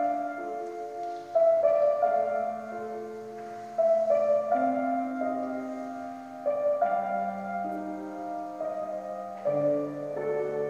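Slow, gentle piano music: a new chord struck every two to three seconds and left to ring out.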